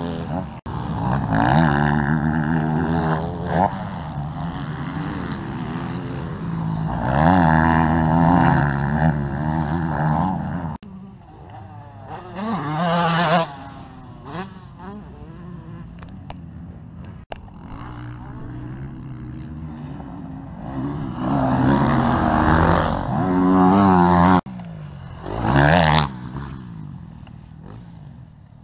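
Motocross dirt bikes revving hard, their engine pitch rising and falling as riders pass, growing louder and fading again several times. The sound breaks off abruptly a few times where clips are joined.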